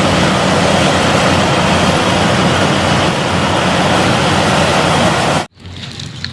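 Vehicle engine sound effect: a loud, steady engine rumble with a hiss over it, which cuts off abruptly about five and a half seconds in.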